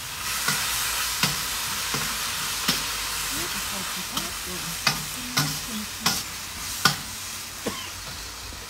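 Beef and vegetable stir-fry sizzling in a hot wok, just coated with its sauce, while a metal utensil stirs it, with sharp clinks of the utensil against the wok every second or so. The sizzle is strongest at first and eases toward the end.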